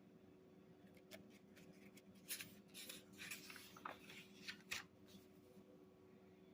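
Paper pages of an instruction manual being handled and turned: a run of faint rustles and clicks over about four seconds, over a low steady hum.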